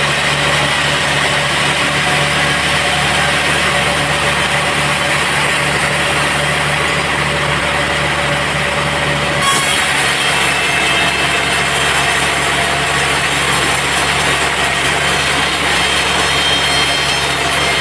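Sawmill band saw running and cutting teak timber, a steady loud machine drone. About halfway through, the sound turns brighter and harsher and stays that way.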